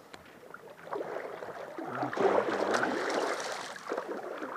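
Water splashing and sloshing at the surface beside the boat as a hooked king salmon thrashes. It builds about a second in, is loudest in the middle, then eases off.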